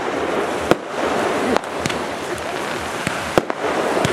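Fireworks going off: about six sharp bangs, irregularly spaced a half-second to a second apart, over a continuous hiss.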